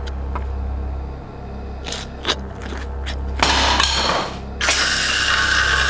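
A steady low hum with a few sharp clicks, then louder noisy scraping sounds from a little past halfway on.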